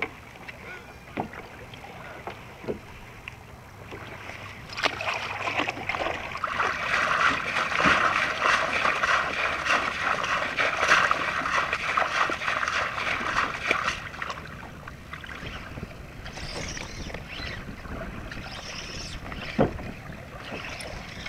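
Water sloshing and splashing against a plastic sit-on-top kayak on a choppy sea. It grows louder and busier through the middle stretch, and there are a few sharp knocks on the hull or gear.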